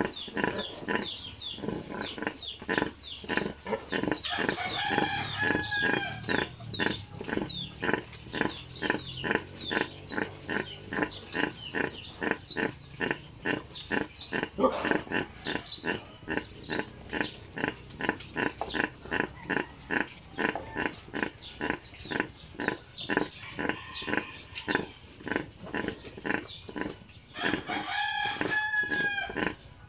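Nursing sow grunting in a fast, steady rhythm of about three short grunts a second while her piglets suckle: the rhythmic nursing grunts a sow makes during suckling and milk let-down. A few times a longer, higher call rises and falls over the grunting.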